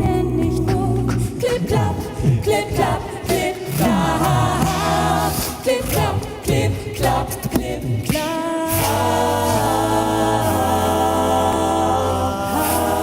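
Male a cappella vocal group singing in close harmony, with sharp clicks and sliding low voices through the first part. From about two-thirds in they settle into a long held chord.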